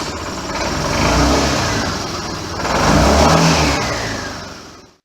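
Motorcycle engine revving, swelling twice, then fading away.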